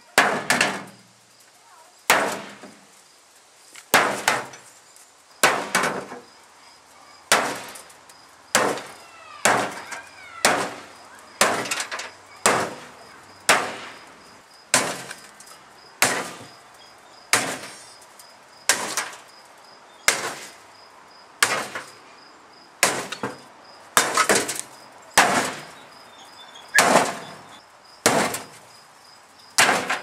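Sledgehammer blows on the sheet-metal cabinet of a GE washing machine. They come in a steady rhythm, about one every second and a half, each a sharp metallic crash with a brief rattle after it.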